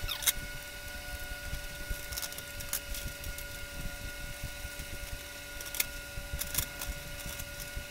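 Small metallic clicks and taps of nuts and bolts being turned and handled by hand as a cast-iron pipe flange is bolted to the underside of a grill, scattered and irregular, over a steady background hum.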